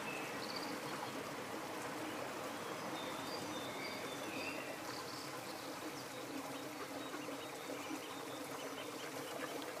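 A flying insect buzzing in a low, wavering hum over a steady outdoor hiss, with scattered short, high bird chirps.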